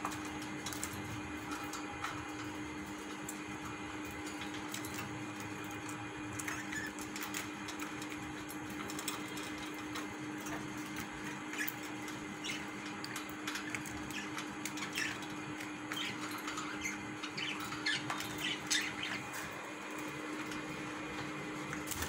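Budgerigars chirping softly now and then, mixed with short clicks, more often in the second half, over a steady low hum.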